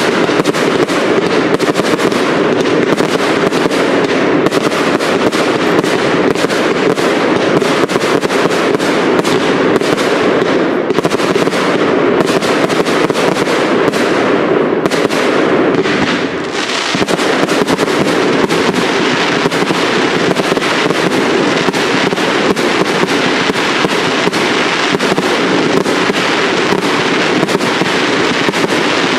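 Professional aerial fireworks going off in a dense, continuous barrage of bangs and crackles. It eases briefly about sixteen seconds in.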